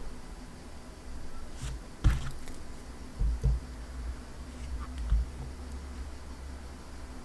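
Small clicks and soft knocks from handling a miniature 1:7 scale AKM model and fitting its small metal parts back together, over low handling noise; several separate knocks, the loudest about two seconds in.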